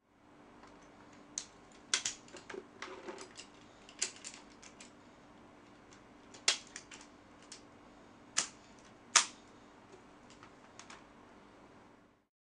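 Metal clicks, clacks and rattles of a belt-fed machine gun being loaded by hand, the linked ammunition belt and the gun's parts knocking together at an irregular pace, with a few sharper clacks, the loudest about three-quarters through. A faint steady hum underneath.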